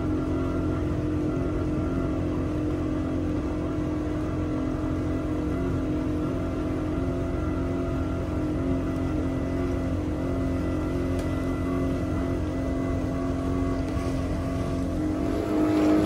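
Engine of a small crew boat running steadily under way, its hum holding one pitch, over a low rush of water and wind. It grows a little louder shortly before the end.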